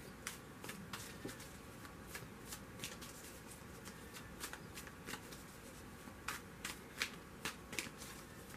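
A deck of tarot cards shuffled by hand: soft, uneven card clicks and flicks, about two to three a second.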